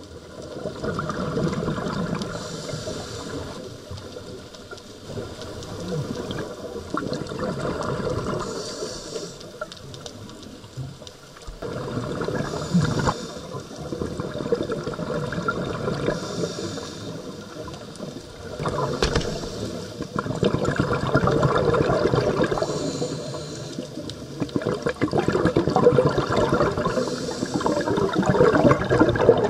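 Scuba diver breathing through a regulator underwater: a short hiss with each inhalation roughly every three to four seconds, followed each time by the gurgling rumble of exhaled bubbles.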